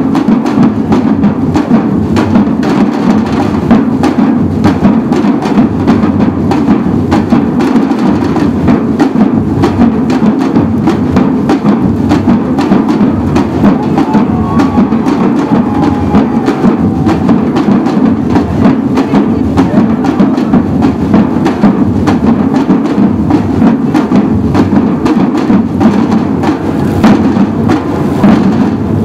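Samba drum group playing together on large waist-slung drums: a loud, continuous rhythm of dense drum strokes with no break.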